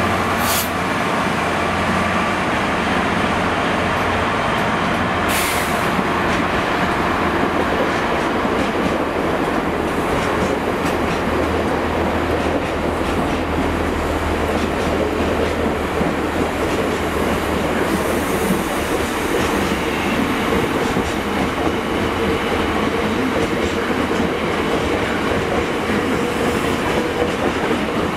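Freight train of bogie hopper wagons rolling past close by behind a GBRf Class 66 diesel locomotive, with a steady rumble and clatter of wheels on rail. A low drone from the locomotive's two-stroke V12 diesel is heard as it goes by at the start. Two sharp clanks come in the first six seconds.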